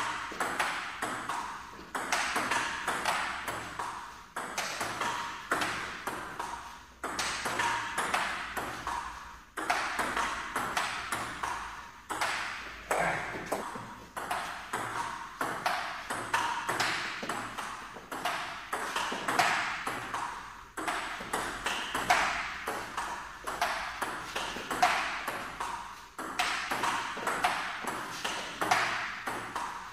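Table tennis rally: the plastic ball clicking sharply off the paddles and bouncing on the table in quick back-and-forth, one paddle faced with antispin rubber. Short breaks between rallies every few seconds.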